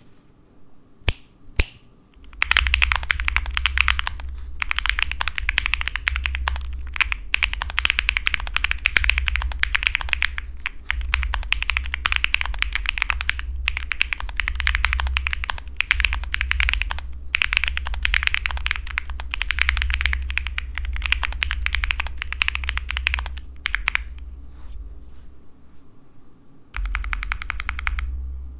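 Rapid typing on a custom mechanical keyboard: Hyperboring Waverider tactile switches on an aluminium plate in a CNC aluminium Wuyu Spring R2 case, with Aifei Pyga keycaps. A few single key presses come first, then a fast, steady run of keystrokes with short pauses, which eases off for a moment near the end before picking up again.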